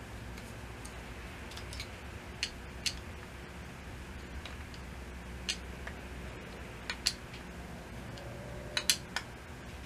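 Scattered light metallic clicks and ticks, several seconds apart with a quick cluster near the end, from small parts and hand tools being handled on a diesel injection pump under repair, over a steady low hum.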